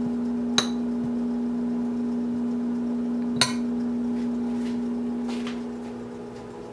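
Metal spoon scraping cooked whole lentils out of a saucepan into a ceramic bowl, with two sharp metal clinks about half a second and three and a half seconds in. A steady low hum runs underneath.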